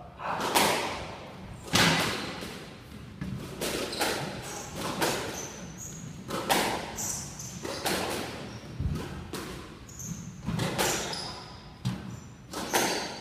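A squash rally: rackets striking the ball and the ball smacking the walls, about a dozen sharp cracks roughly one a second, the loudest two near the start. Short high squeaks of court shoes on the wooden floor fall between the shots.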